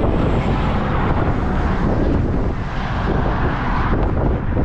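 Strong wind buffeting the microphone: a loud, gusting rumble with a hiss above it.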